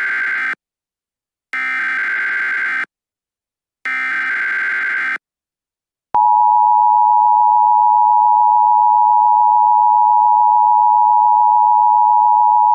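Emergency Alert System header: the end of one burst of the SAME digital data signal and then two more, each a raspy warbling burst of about a second. About six seconds in, the steady two-tone EAS attention signal (853 and 960 Hz together) starts and holds loud.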